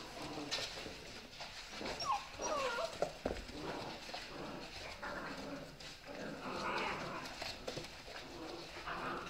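Dalmatian puppies whining and yipping while they play-fight over a hanging toy, with short rising and falling whines about two seconds in. Paws scrabble and knock on the wooden floor, with a thump about three seconds in.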